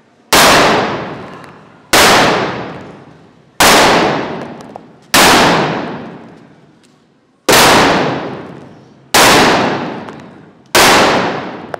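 Seven sharp blasts of paint-filled balls exploding one after another, each ringing on and dying away over a second or so in the enclosed room. There is a slightly longer gap before the fifth.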